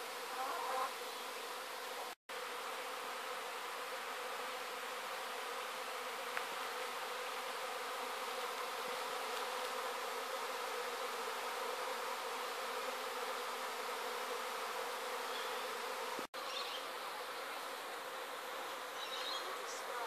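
Honey bee swarm in flight: the steady hum of thousands of bees leaving their hive together. It cuts out briefly twice, about two seconds in and again near the end.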